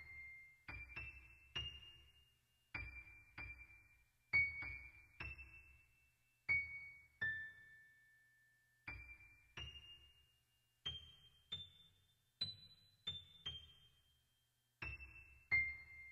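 Background music: a slow keyboard melody played one note at a time, each note struck and left to ring away, with short pauses between phrases.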